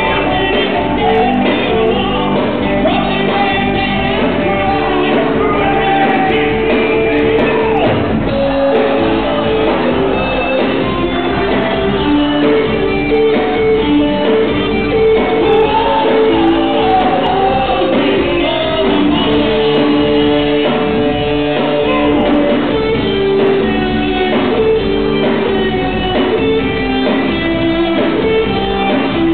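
Rock band playing live with a singer, guitars and a steady loud mix, heard as a room recording.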